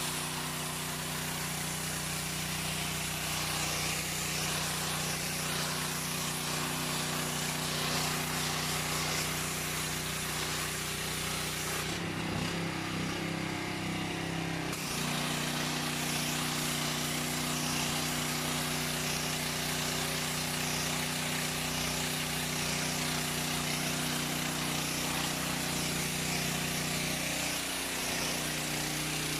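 Ferrex petrol pressure washer running steadily, its engine note under the hiss of the high-pressure spray jet on the pavers. About twelve seconds in, the spray hiss stops for about three seconds while the engine note wavers, then the spray resumes.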